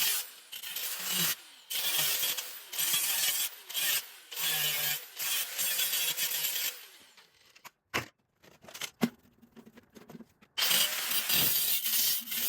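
Tool scraping or sawing at metal in a run of quick rasping strokes, broken in the middle by a few sharp clicks and knocks, then rasping again near the end.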